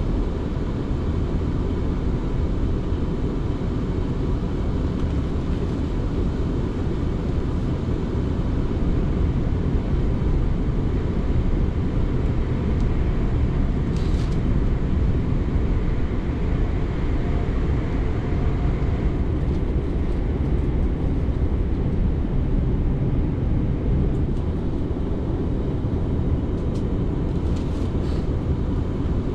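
South Western Railway electric passenger train running along the line, heard from on board: a steady low rumble of wheels and running gear with a faint steady whine. A brief click sounds about halfway through and a few light ticks near the end.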